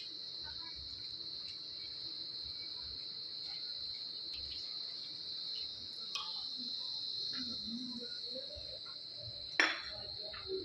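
Steady high-pitched buzzing of insects. A brief sharp sound, louder than the buzzing, comes near the end.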